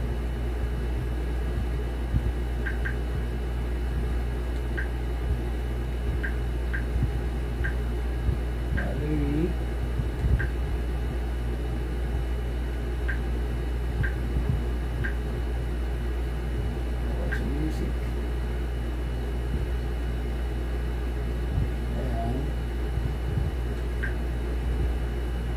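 Huawei Vision S smart TV's menu navigation sounds, played through the soundbar: short, soft, high blips, a dozen or so at irregular intervals as remote buttons are pressed, over a steady low hum.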